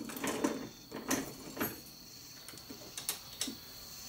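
Dillon RL 550B progressive reloading press being worked by hand while loading .45 ACP: a few sharp metallic clicks and knocks from the handle stroke and the parts of the press, with two more about three seconds in. A faint steady high tone runs underneath.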